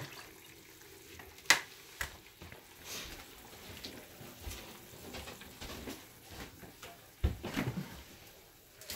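Kitchen handling sounds: a sharp click about a second and a half in, then scattered light knocks and taps of dishes and utensils, with a short cluster of knocks near the end.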